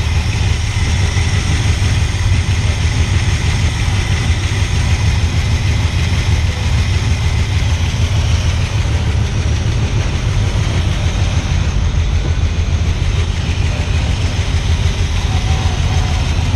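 1979 Ford F150's 400 V8 engine running steadily at idle on its newly fitted distributor, with the ignition timing just advanced about 6 degrees.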